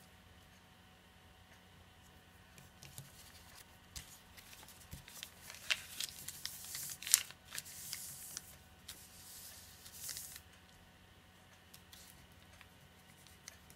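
A sheet of origami paper rustling and crinkling as it is handled, turned over and creased. It is quiet for the first couple of seconds, then the crinkling runs for several seconds with small sharp crackles, loudest around the middle with one sharp crackle, and dies down near the end.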